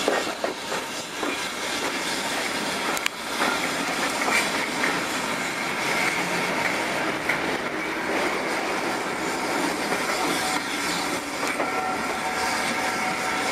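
Railway passenger carriage rolling slowly over jointed track, heard from an open window: a steady running noise with clicks from the rail joints. Faint thin squealing from the wheels becomes clearer near the end.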